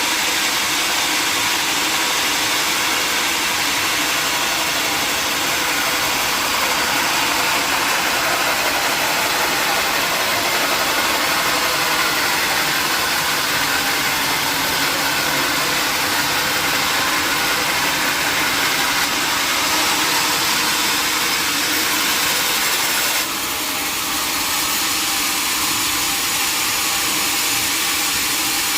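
Sawmill running steadily, a continuous mechanical noise from its motor and saw. About 23 seconds in, the sound drops a little and changes in tone.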